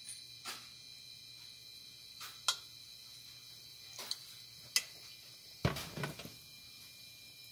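Scattered sharp pops and crackles of hot oil around a dollop of oliebollen batter deep-frying, with a louder cluster of knocks about six seconds in. A faint steady high whine sits underneath.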